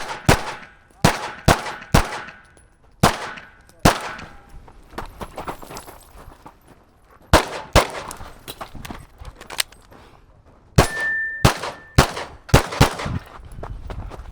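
Semi-automatic pistol shots fired in quick pairs and short strings during a timed IDPA course of fire. There are fainter shots and clicks in between. A short steady beep sounds about eleven seconds in.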